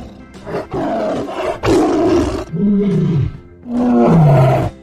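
Tiger roaring and growling: a string of about five loud, rough roars one after another.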